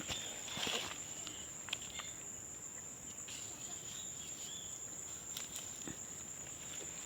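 Insects shrilling as one steady high-pitched tone in the field, with scattered soft clicks and rustles over it.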